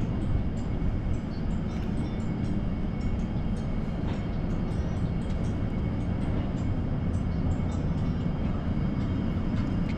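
Steady low rumble of store ambience heard while walking through the aisles, with faint scattered ticks over it.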